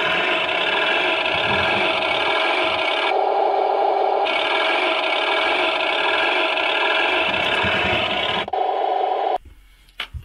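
HengLong RC KV tank model driving on a workbench: its drive motors, metal gearboxes and tracks run with a steady whirring, scraping sound. The sound changes for about a second around three seconds in and cuts off shortly before the end. The running is very smooth.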